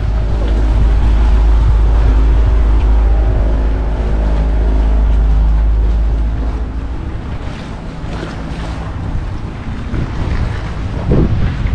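Boat engine running on the water with the wash of water and wind. The low engine rumble drops away about six seconds in, leaving the noisier splash and wash.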